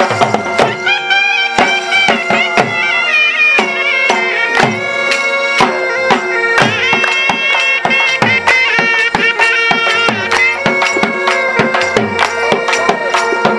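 Jhumar folk music: a dhol drum beating a steady rhythm under a been, a reed pipe, playing a reedy melody over a held drone.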